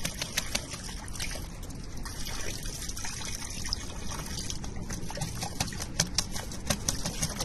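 An outdoor tap running in a steady stream onto a metal drain grate, with a crow bathing under it, its wings beating and throwing off repeated sharp splashes that come thickest near the end.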